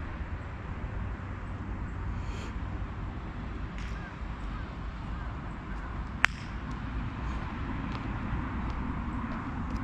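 A single sharp crack, about six seconds in, of a wooden-headed park golf club striking the plastic ball on a tee shot, over a steady low rumble.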